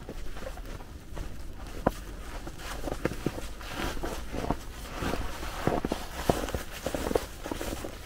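Footsteps crunching through snow, an uneven run of steps several times a second.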